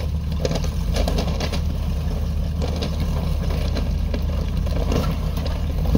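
Off-road 4x4 engine running steadily at low revs while crawling over a log obstacle, with scattered light clicks.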